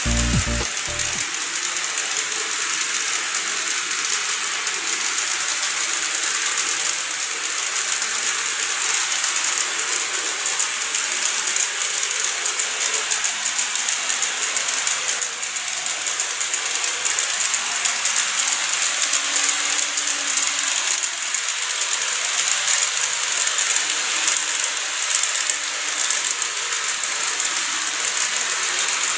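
Model freight train of an EH200 electric locomotive and tank wagons running on plastic model track: a steady whirring hiss from the motor and gearing, with fine rapid clicking of the small wheels over the rail joints.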